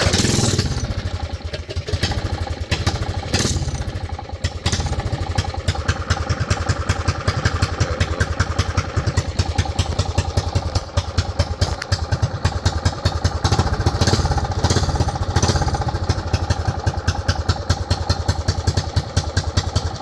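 Briggs & Stratton single-cylinder engine on a mini bike fires up suddenly and runs, a little uneven for the first few seconds, then settles into a steady idle while still cold.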